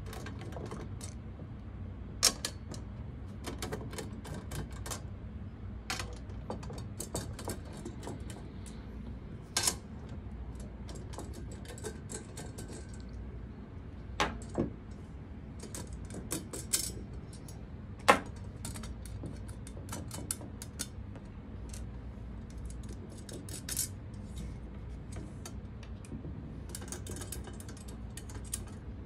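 Scattered small metallic clicks and clinks as nuts are backed off with a hand-held 7 mm nut driver and metal mounting plates are lifted off the mount and handled, with a few sharper clinks standing out, over a steady low hum.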